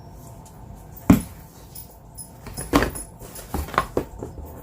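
Products and packaging being handled on a table: a sharp knock about a second in, then a few smaller clatters and knocks.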